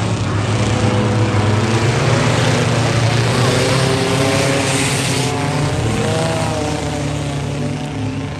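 Several race car engines running hard together on the track, their engine notes wavering and rising and falling as the cars circle.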